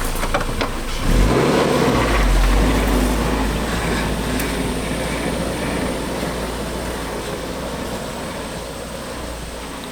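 A motor engine starts up about a second in with a brief rise in pitch, then runs steadily with a low rumble that slowly fades.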